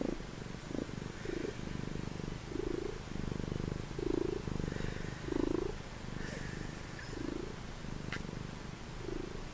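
Domestic tabby cat purring close to the microphone: a steady low rumble that swells with each breath, every second or two.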